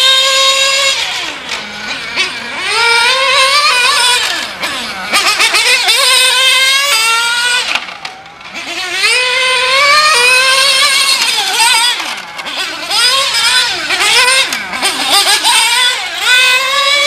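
Kyosho Inferno GT3 RC car's small nitro engine revving high and easing off over and over as it laps, the pitch climbing through the straights and dropping for the corners, with its deepest, quietest dip about eight seconds in.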